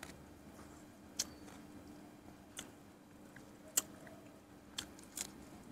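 Faint wet clicks and smacks of a mouth chewing food, about five sharp ones spread irregularly over the few seconds, over a faint steady hum.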